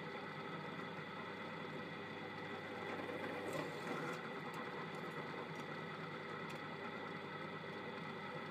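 Benchtop drill press motor running with a steady hum and whine while the bit is fed down into a small metal part held in a vise. A few faint clicks come through in the middle.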